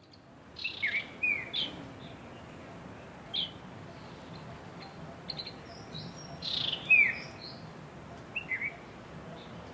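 Birds chirping: short, sharp chirps that sweep downward in pitch, coming in scattered clusters of two or three, over a steady faint background hiss.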